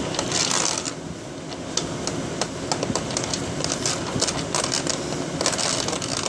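Irregular sharp clicks and clinks of a utensil and dishware being handled, with two short scraping bursts, one near the start and one near the end, over a steady low hum.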